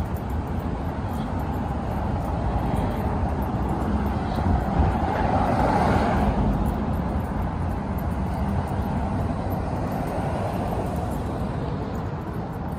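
Road traffic noise, with one vehicle passing close by about halfway through, its sound rising and then fading.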